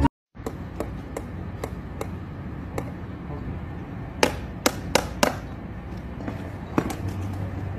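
Irregular sharp knocks and taps, as of hand tools striking a hard surface, over a steady background hiss. The loudest come in a quick cluster of four a little past halfway, with one more near the end.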